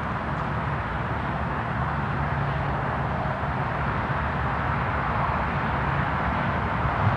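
Distant BNSF diesel freight locomotives approaching, a steady low engine rumble that grows slightly louder.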